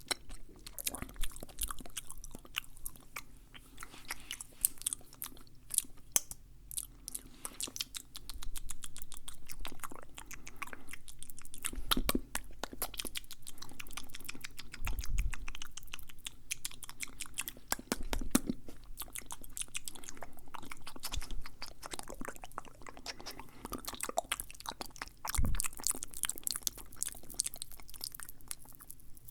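Fast, aggressive, wet ASMR mouth sounds close to the microphone: a dense, rapid run of clicks and smacks, with a few louder low thumps now and then.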